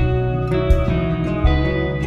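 Background instrumental music with a steady beat.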